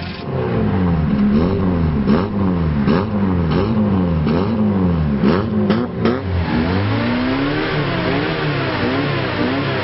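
Old car's engine revved again and again in short blips of the accelerator, its pitch rising and falling one to two times a second. Sharp clicks mark several of the revs in the first half, and later the revs come as quicker, smaller waves.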